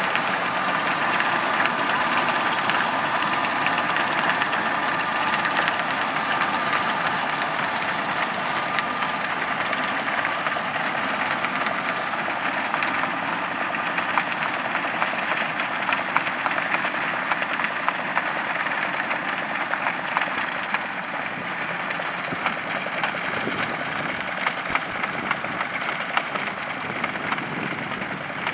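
Tractor running with a manure spreader working behind it: a steady, dense mechanical rumble full of fine rattling and clatter, with a thin whine in the first half, easing slightly after about 20 seconds.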